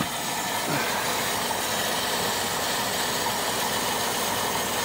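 Water pump running steadily, filling the pressure tank and building water pressure toward its 55 PSI cut-off.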